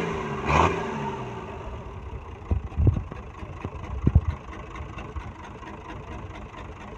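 Bare used truck diesel engine running on the ground, revved briefly about half a second in, its pitch rising and falling, then settling to a quieter steady run with a few knocks.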